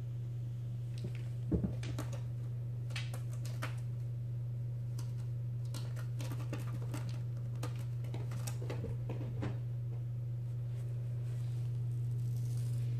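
Scattered light taps and scuffs as a cat bats a soft ball about on carpet and a scratching post, with a small knock about a second and a half in. A steady low hum lies under it.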